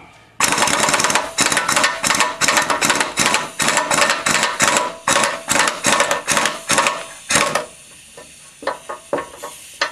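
Impact wrench hammering in a rapid rattle for about seven seconds as it spins the piston nut off a hydraulic cylinder rod. The nut comes off very easily, which the owner takes as a sign that it had worked loose. A few sharp metallic clicks follow near the end.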